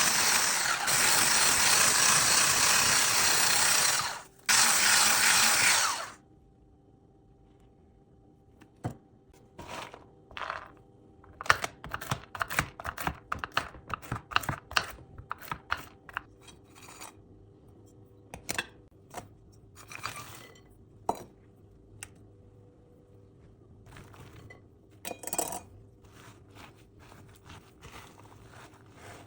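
A small electric kitchen appliance runs loudly, cuts out about four seconds in, runs again briefly and stops about six seconds in. After that come scattered light clicks, taps and scrapes of handling kitchenware.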